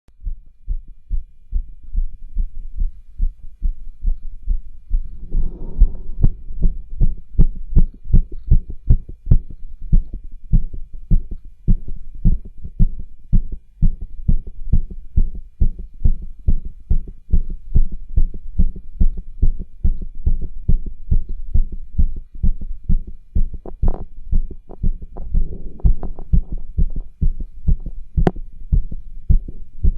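Heartbeat heard through a cardiology stethoscope, regular at about two beats a second, made more pronounced by straining pushes, with murmurs and rubs in the heart sounds. Two short stretches of rustling noise come in around five seconds in and again near twenty-five seconds, and sharp clicks sound near the end.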